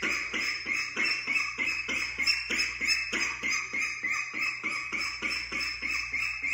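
Young duck calling over and over in a quick, even run of short peeps, about four or five a second.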